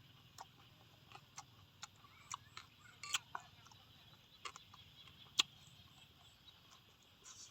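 Chewing on crunchy fried birds: irregular sharp crunches and clicks, the loudest about three seconds and five seconds in.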